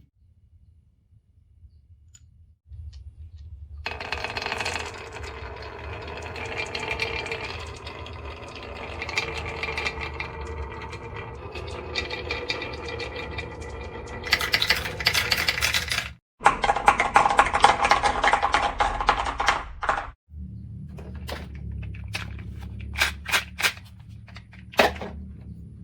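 Marbles rolling and clattering through a toy marble run: a long rolling rattle, then a burst of louder clatter. After abrupt cuts come dense clattering and a low rumble with scattered sharp clicks.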